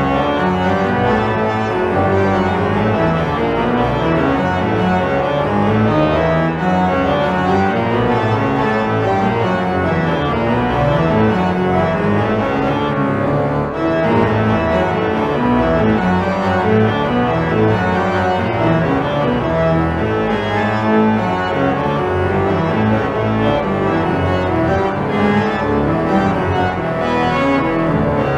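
Pipe organ playing loud, dense music without a break, with a moving pedal bass line under many-voiced chords.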